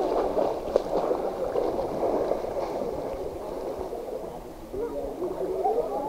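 Water gurgling and sloshing around a camera held at the water's surface. The sound is muffled, with little in the highs.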